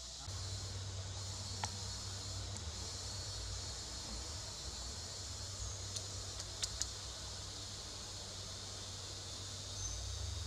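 Steady, high insect chorus from the surrounding forest, with a low steady rumble underneath. A few sharp clicks sound through it, two of them close together about two-thirds of the way in.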